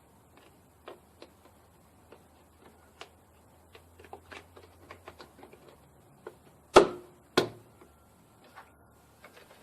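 Scattered light clicks and knocks of parts and containers being handled, then two sharp knocks about half a second apart.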